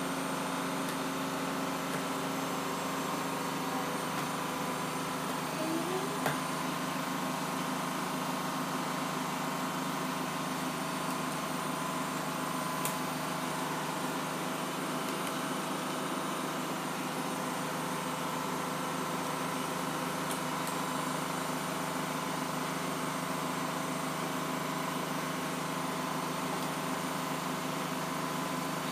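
Steady machine hum holding several fixed pitches, with a sharp click about six seconds in and another faint one a little later.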